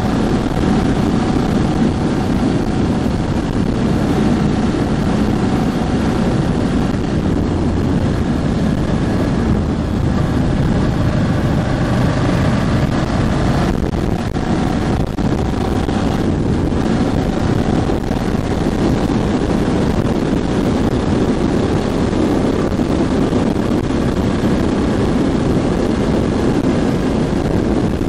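Ducati Hypermotard 1100S's air-cooled L-twin engine running steadily under way during its break-in period, with wind rushing over the microphone.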